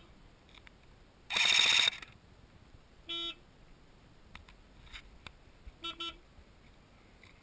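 Car horn: one loud honk about a second in, then a short toot, and two quick toots near the end.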